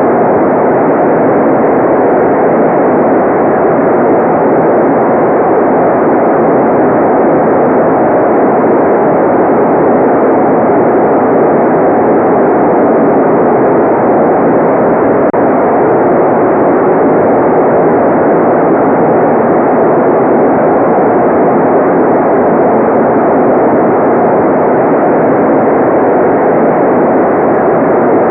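Steady, unchanging white noise from a relaxation noise track: a dull, even rush weighted toward the low-middle range, with no high hiss.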